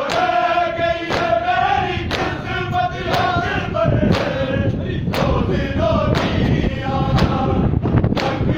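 A group of mourners chanting a noha in unison, with rhythmic matam (chest-beating) strikes about once a second.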